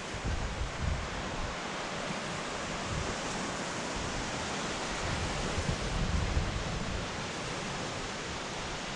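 Ocean surf rushing steadily, with low wind buffeting on the microphone that comes and goes, strongest a little past the middle.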